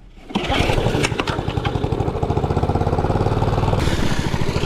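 Lawnmower engine running with a fast, even firing beat; it comes in suddenly about half a second in and holds steady.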